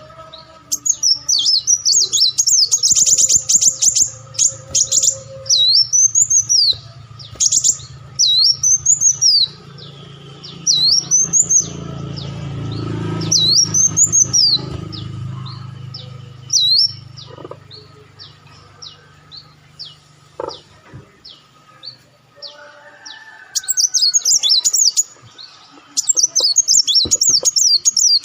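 Sunbird (burung madu Muncang) singing: runs of loud, sharp, high arched chirps repeated in quick series, with fast chattering trills at the start and again near the end. A low rumble in the background swells and fades in the middle.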